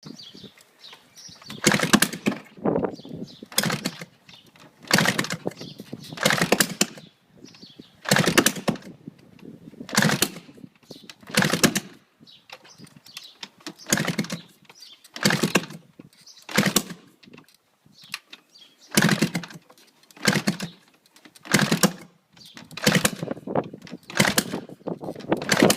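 GasGas 250 motorcycle being kicked over again and again with its exhaust off. Each attempt is a short loud burst of the engine turning over, about every one to two seconds, and it never fires: so close to starting but not catching.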